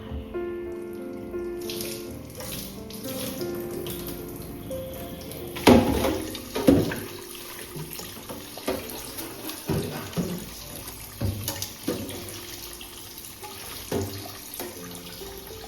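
Water running from a tap into a sink, with knocks and clatters of things being handled under it: two loud knocks about a third of the way in, then lighter ones every second or so. Soft background music plays underneath.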